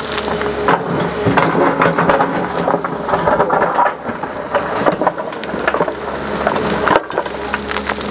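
Hyundai 320LC-9 tracked excavator digging stony ground: the bucket scrapes and crunches through rocks and soil with many sharp cracks and knocks, over the steady hum of its diesel engine.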